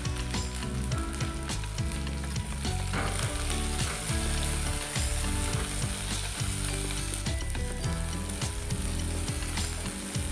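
Chopped spring onions and green chillies sizzling in hot oil in an aluminium kadhai, with a wooden spatula scraping and tapping the pan as they are stirred.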